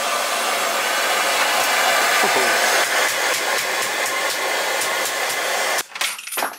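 Handheld gas blowtorch burning with a steady hiss that cuts off abruptly near the end.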